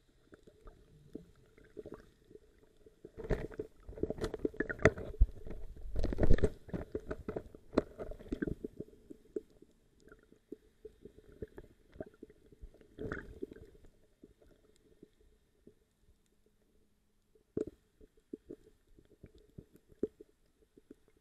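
Muffled underwater noise picked up by the submerged camera: dull rumbles, knocks and crackles of water movement and handling, busiest from about three to nine seconds in, with a few sharp knocks later, over a faint steady hum.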